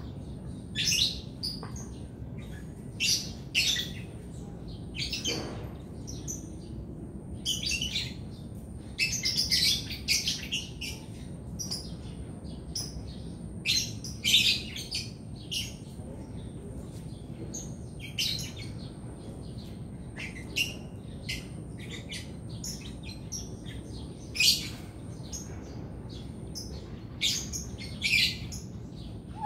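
Small birds chirping: short high chirps scattered irregularly, over a steady low background hum.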